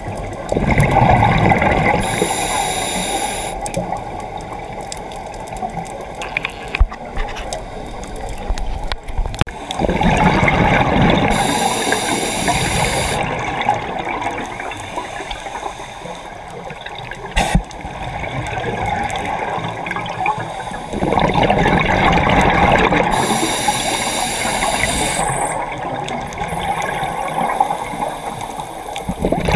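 Scuba diver breathing through a regulator underwater: three breath cycles about ten seconds apart, each a burst of bubbling exhaled air followed by a hissing breath.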